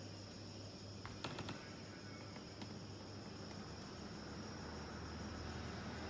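Faint steady high-pitched chirring of crickets, over a low hum, with a few light clicks about a second in and once more shortly after.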